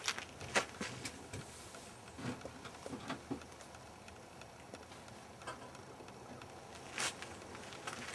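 Faint, scattered clicks and scuffs of someone moving about with a handheld camera, with a few sharper clicks at the start, about half a second in and about seven seconds in.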